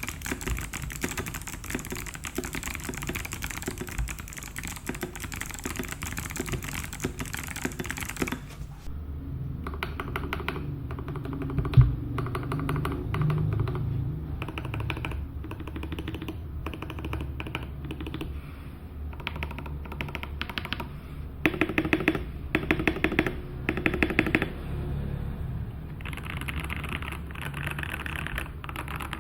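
Typing on a Keydous NJ81 mechanical keyboard. At first it has clicky Kailh Box White switches on a brass plate, giving dense, crisp clicks. About eight seconds in it cuts to linear Gateron Yellow Pro switches on a steel plate, which sound deeper, with one loud thock a few seconds later and bursts of fast typing near the end.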